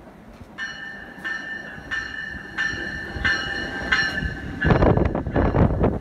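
NJ Transit bilevel commuter train arriving: its bell rings steadily, struck about once every two-thirds of a second. Then, near the end, the leading cab car passes close by with loud wheel and air noise.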